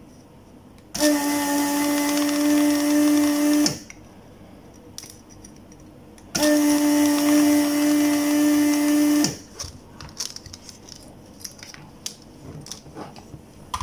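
Vacuum desoldering iron's suction pump switched on twice, each time for nearly three seconds: a steady motor hum with a rush of air, starting and stopping abruptly, as it sucks molten solder from a fuse's pads on a circuit board. Small clicks of the board being handled follow.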